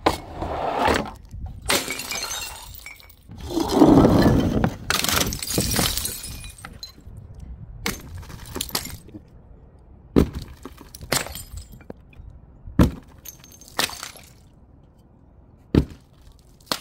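Glass bottles breaking and shattering, with pieces clinking and scattering. The loudest break comes about four seconds in. In the second half there are a handful of separate sharp glass knocks.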